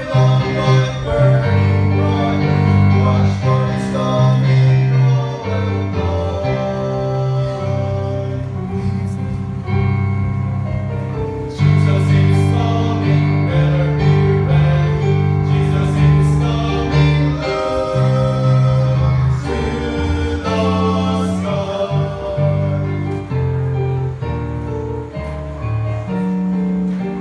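Three men singing a gospel song together over an instrumental accompaniment.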